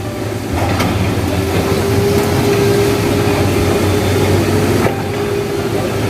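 Excavator's diesel engine running steadily, with a constant low hum and a higher steady tone over it.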